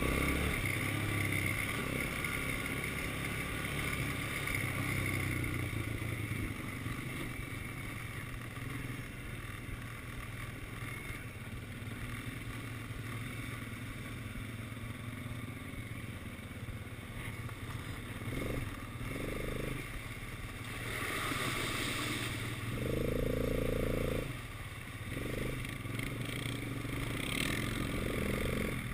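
Quad bike engine running as it is ridden over a dirt track, with a short louder hiss about three quarters of the way through.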